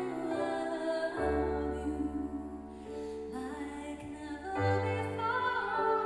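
Female vocalist singing a slow, tender ballad over keyboard piano accompaniment, with sustained piano chords struck about a second in and again near five seconds.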